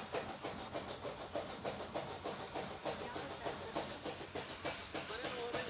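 A dog panting fast and steadily, about four to five breaths a second: the heavy panting of a dog struggling with the heat.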